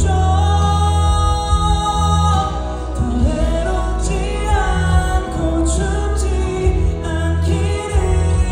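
A male singer singing a ballad live over a backing track, with long held notes that bend in pitch over a steady bass line.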